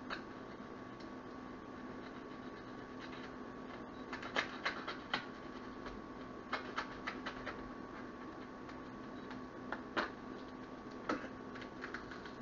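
A plastic package of ground meat being handled and opened: scattered sharp crackles and clicks in short runs, over a faint steady hum.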